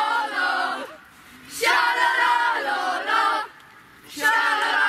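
A group of young boys chanting together in unison, a team victory chant, in three phrases separated by short pauses.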